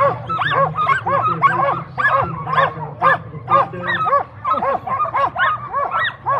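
A team of harnessed sled dogs yelping and barking in quick, overlapping calls, several a second from many dogs at once: the excited clamour of a team straining to run while it is held back before the start.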